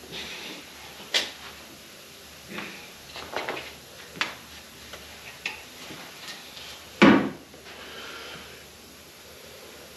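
Molding sand being shoveled into a steel mold flask: scattered scrapes and knocks of the shovel against the flask, with one loud thump about seven seconds in.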